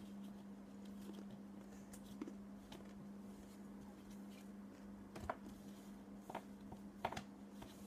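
Faint clicks and rustles of trading cards being handled and searched through, a few sharp ticks spread over the last few seconds, over a steady low hum.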